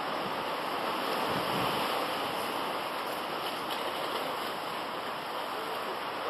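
Steady rush of sea surf washing over shore rocks.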